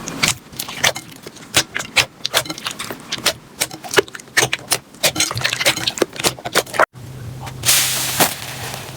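Slime being squeezed and poked by hand, giving rapid irregular wet clicks and pops. After a brief break about seven seconds in, a steadier crackling takes over as the next clip begins.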